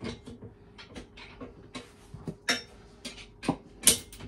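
Irregular clicks and a few sharper metallic knocks as a bolt at the foot of a Grohe wall-hung toilet frame is worked and tightened by hand and tool. The two loudest knocks come about two and a half seconds and about four seconds in.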